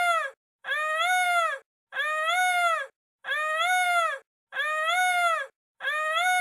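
An animal call played over and over: the same drawn-out call, its pitch rising then falling, comes about once every 1.3 seconds with silence between.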